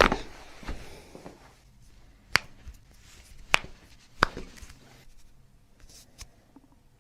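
Chiropractic adjustments: three loud, sharp joint cracks about a second apart, with fainter clicks and soft rustling of hands and clothing around them.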